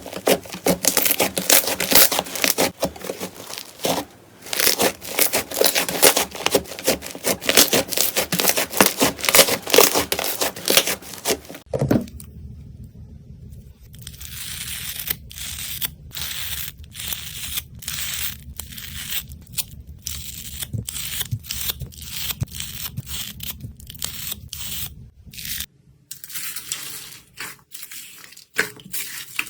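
Slime being squeezed and pulled by hand, making a dense run of crackles and pops. About twelve seconds in it cuts to sparser, softer pops over a steady low hum, and the sound changes again near the end.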